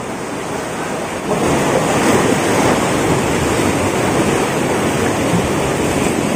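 Sea surf breaking and washing over shoreline rocks, a steady rushing that grows louder about a second in, with wind buffeting the microphone.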